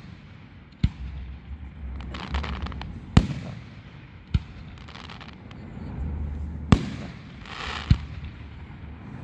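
Aerial firework shells bursting overhead: five sharp booms spaced a second or more apart, with stretches of hiss between them.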